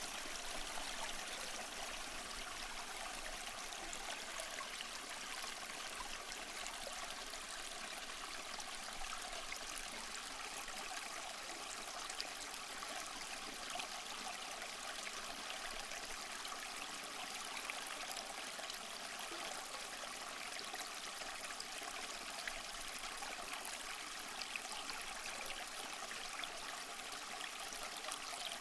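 Small waterfall of water splashing and trickling over mossy rocks: a steady, even rush with a light splashing texture that does not change.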